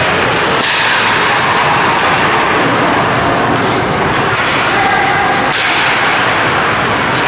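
Ice hockey play in an indoor rink: a steady wash of skate and arena noise, broken about three times by sharp knocks of stick and puck, with faint distant voices.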